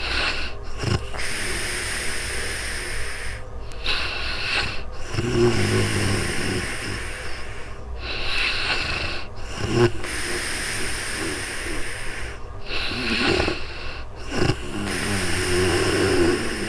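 A woman snoring in deep sleep. Slow breaths alternate with short pauses, and there is a low rattling snore about five seconds in and again near the end.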